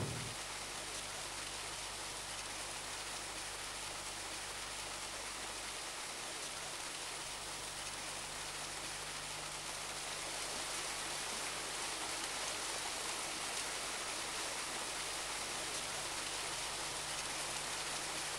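Steady rushing hiss of a small waterfall pouring into a rocky pool, growing slightly louder about halfway through.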